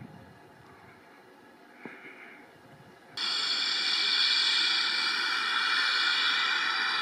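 After a quiet opening, a loud, steady hiss of steam starts suddenly about three seconds in: GWR 2-6-2T prairie tank locomotive 4555 standing and letting off steam.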